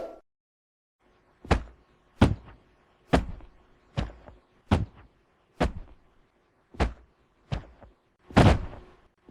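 A series of about nine heavy thuds, spaced roughly a second apart, each with a short decaying tail: body-fall impact sound effects.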